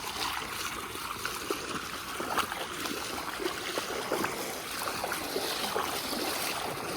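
Steady rushing of water from a small creek waterfall.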